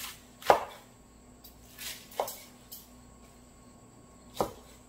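A kitchen knife chopping through a bundle of blanched, peeled butterbur stems onto a wooden cutting board: a few separate, unevenly spaced chops, the loudest about half a second in and another near the end.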